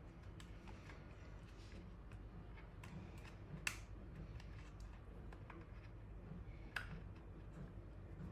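Faint, irregular plastic clicks and knocks from a Safe Slice mandoline slicer as a sweet potato is pushed through it, with two sharper clicks about a third of the way in and again near the end.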